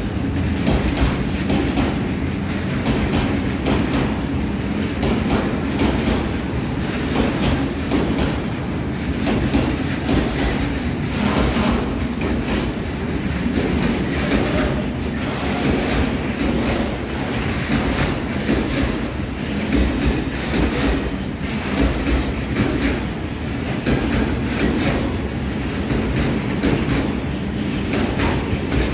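A long freight train of loaded open-top wagons rolling past at steady speed, its wheels clattering over the rail joints in a continuous run of knocks.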